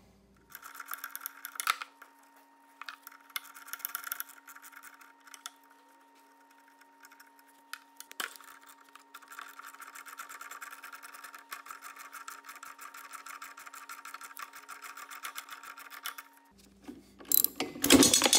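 A socket ratchet clicks in quick, even runs as bolts are loosened, with scattered sharp metal clinks. Louder clatter of handling comes near the end, and a faint steady hum sits underneath.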